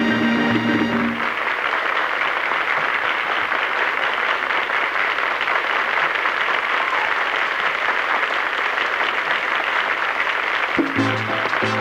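Audience applauding steadily after the band's final note cuts off about a second in. Near the end a salsa band with brass and bass strikes up the next number.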